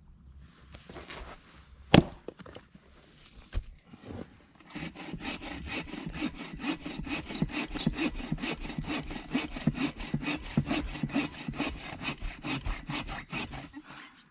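Hand saw cutting through wood in quick, even back-and-forth strokes, starting about five seconds in. A single sharp knock comes about two seconds in.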